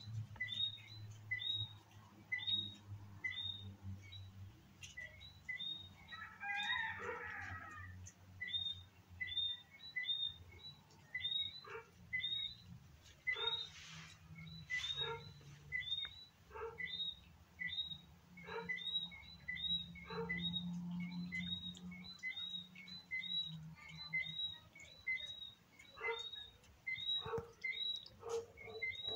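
A bird repeating one short chirp over and over, a little more than once a second, with scattered faint clicks and a brief burst of other calls a few seconds in.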